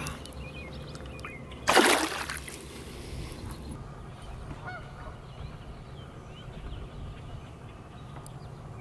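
A short splash about two seconds in as a smallmouth bass is dropped back into the shallow water, followed by faint bird calls over a steady low background.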